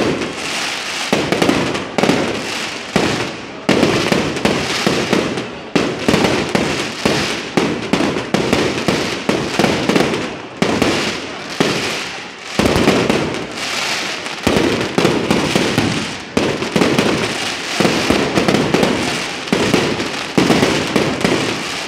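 Aerial fireworks display: shells bursting in quick succession, loud bangs about once a second over continuous crackling.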